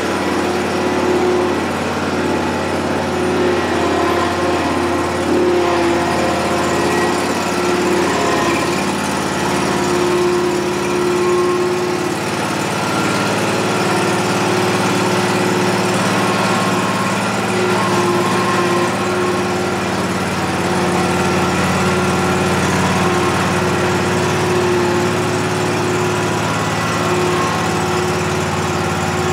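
Scag Tiger Cat zero-turn mower engine running steadily while the mower is maneuvered and turned around, its pitch shifting a little in the first ten seconds or so and then holding even.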